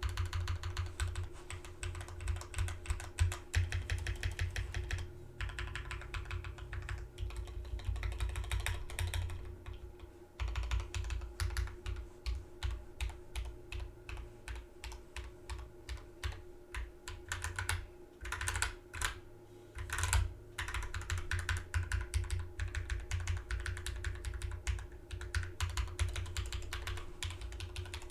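Typing on a Drop Alt mechanical keyboard with hand-lubed Drop Holy Panda V2 tactile switches and lubed stock stabilizers: a rapid, continuous run of keystrokes. There is a brief pause about ten seconds in, and a few louder strokes come around eighteen to twenty seconds in.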